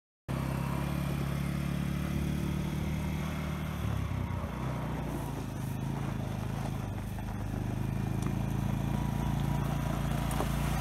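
Quad bike engine running as the bike drives slowly closer. Its note drops a little about four seconds in, and it grows louder near the end as the bike approaches.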